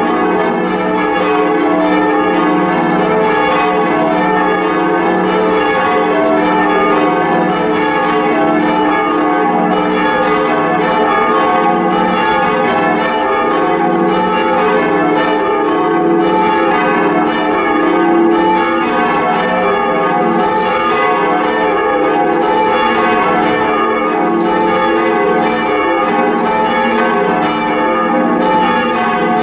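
A ring of four heavy church bells being rung for change ringing, strokes following one another in a steady, even rhythm, with each bell's tone overlapping the next so the sound never dies away.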